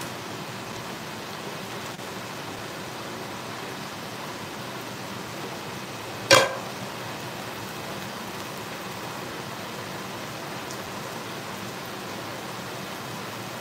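A cooking pot clanks once, loudly, against metal about six seconds in, over a steady, unchanging hiss.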